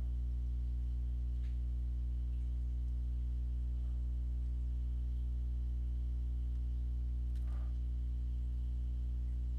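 Steady low electrical hum with a stack of even overtones, unchanging throughout. Three faint short clicks sound over it, the clearest about seven and a half seconds in, as the mouse edits the mask points.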